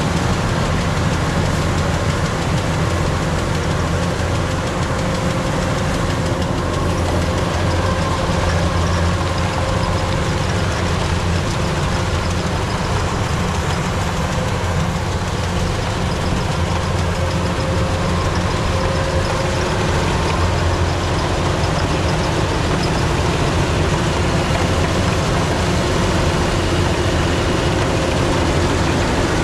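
Kubota DC-105X combine harvester working a rice crop: its diesel engine and threshing machinery run as a steady low drone, with faint steady whining tones above it.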